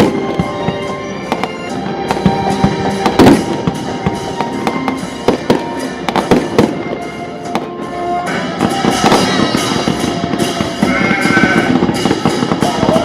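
Fireworks going off in many sharp, irregular bangs and crackles, with music playing along. About two-thirds of the way through, the bangs thicken into a dense crackle.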